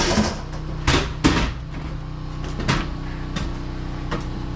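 A few sharp knocks and clunks of something being handled or set against a surface, the loudest about a second in, over a steady low hum.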